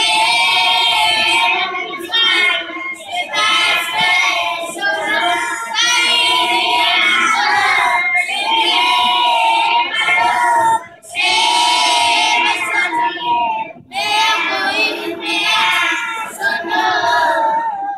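A choir of young boys singing together in long phrases, with short breaks about 11 and 14 seconds in.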